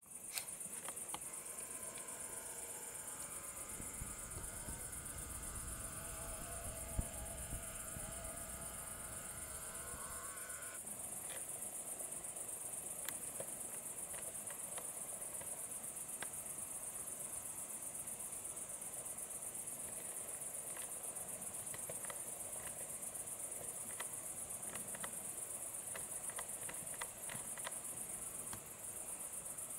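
Crickets chirring in a steady high-pitched trill, over a faint low rumble that stops suddenly about ten seconds in and a few scattered faint clicks.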